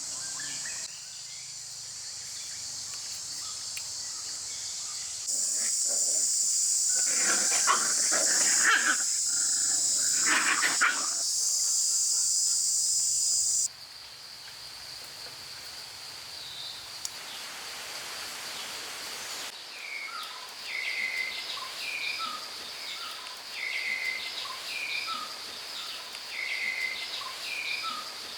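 A dog whining and crying over a steady high drone of insects, with a louder stretch of calls about eight seconds in and a run of short repeated cries in the last third.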